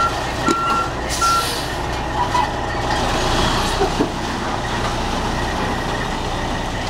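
Semi truck's diesel engine running as the rig backs up, with its reversing alarm beeping evenly, a little under once a second, until it stops about a second and a half in. A short hiss of air sounds about a second in.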